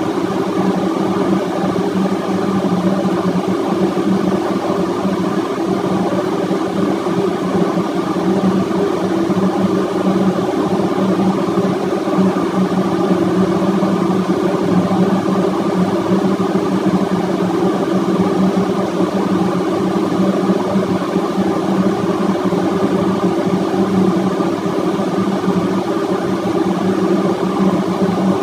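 Running engine-room machinery: a loud, steady drone with a strong low hum that never changes.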